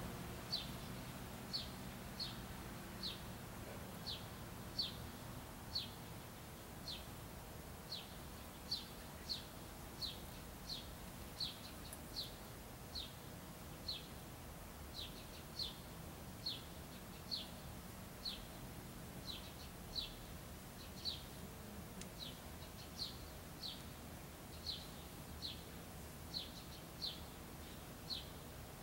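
A bird chirping over and over, a short falling chirp about once a second, over a faint steady hum of background noise.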